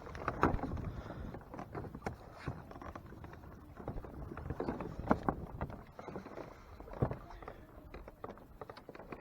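Irregular knocks and clicks aboard a Hobie Mirage Tandem Island kayak as fishing gear is handled, the sharpest about five and seven seconds in.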